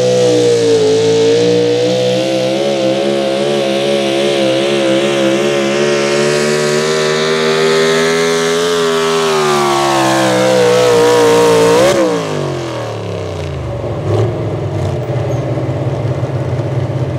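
Pro stock 4x4 Chevrolet pulling truck running at full throttle as it drags the pulling sled. The high, steady engine note wobbles slightly and sags in pitch toward the end of the pull. About twelve seconds in, the throttle closes and the engine drops quickly to a low idle.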